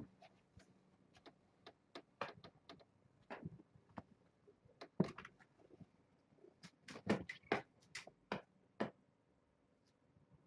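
Young kittens scampering and play-fighting: faint, irregular light taps and clicks of paws and claws on the floor, coming in little clusters, busiest about halfway through and again near the end.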